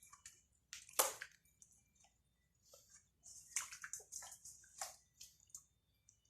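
Hands handling a marinated raw whole chicken in a bowl: scattered wet squishing sounds and small knocks, the loudest about a second in.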